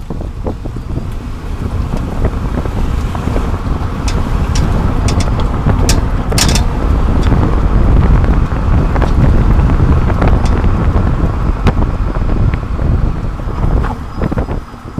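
Road and tyre rumble with wind buffeting, heard from a camera mounted under a 30-series Toyota Prius while it drives, with scattered sharp clicks and knocks, most of them around the middle.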